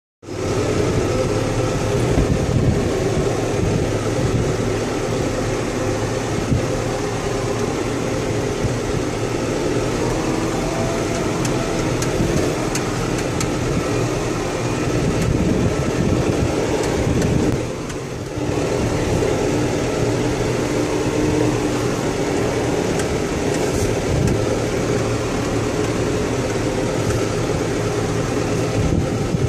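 John Deere 5085M tractor's four-cylinder diesel engine running steadily as the tractor drives along, with scattered light clicks and rattles. The level dips briefly a little past halfway.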